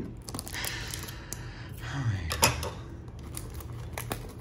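Scissors clicking and plastic shrink wrap rustling as the wrap is cut off a small cardboard box, with a sharper click about two and a half seconds in.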